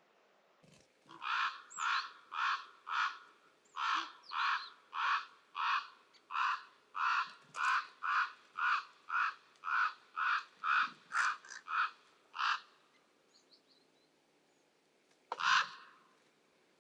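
A large bird calling a long, regular series of about twenty loud notes, roughly two a second, then one more call a few seconds later.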